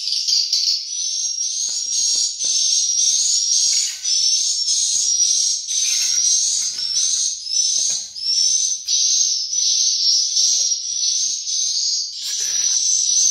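Swiftlet twittering: a dense, high chirping that repeats about twice a second without a break. Faint knocks from bricks being set in mortar sit beneath it.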